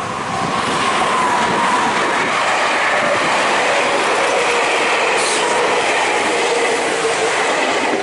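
Electric train passing close by, a loud steady rush of wheel and running noise that swells about half a second in and holds, with faint whining tones drifting through it.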